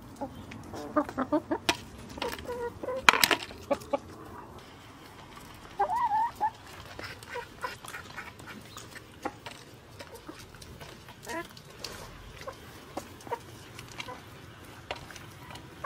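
Backyard hens clucking while they feed, with many short sharp taps of beaks pecking at food on concrete. A short warbling hen call comes about six seconds in.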